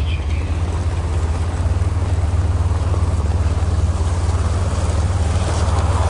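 An off-road vehicle's engine runs steadily as a low, even drone. A rush of noise rises near the end.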